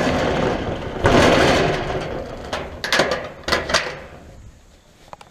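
Corrugated sheet-metal shed door scraping and rattling in two long stretches, then a run of sharp metallic clicks and knocks at its latch.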